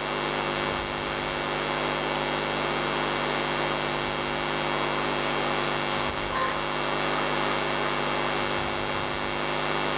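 Steady droning hum made of several held tones over a hiss, coming from the film montage's soundtrack played over the hall's loudspeakers.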